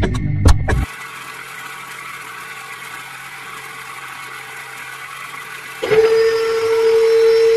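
Music ends just under a second in, leaving a quiet steady hiss. About six seconds in, a small brushed DC motor on a toy drilling rig starts and runs with a loud, steady whine.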